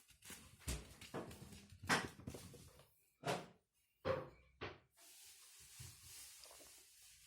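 A series of about six knocks and thumps, the loudest about two seconds in, followed by a soft hiss near the end.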